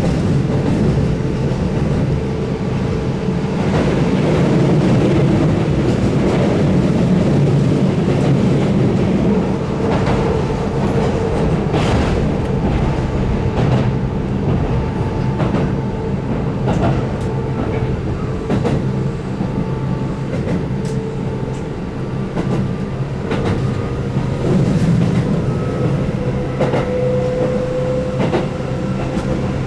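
Keihan 8000 series electric train running, its DC traction motors giving a steady whine under a heavy rumble, with the wheels clicking over rail joints now and then.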